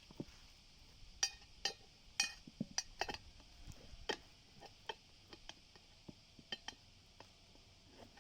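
Metal tools and parts clinking and tapping in a run of sharp, irregular clicks, busiest in the first half and thinning out after.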